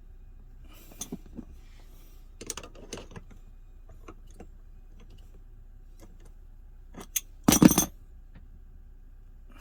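Small metal objects clinking and rattling as they are handled: a few light clicks about a second in, a cluster around two and a half seconds, and a louder burst of clinking near the end.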